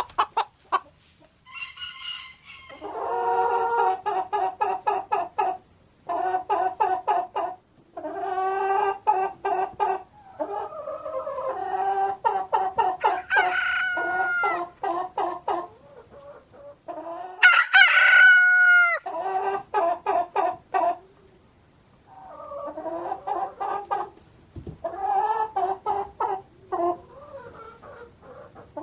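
Chickens clucking and cackling in bursts of quick repeated calls with short pauses between them, and one longer drawn-out call about seventeen seconds in.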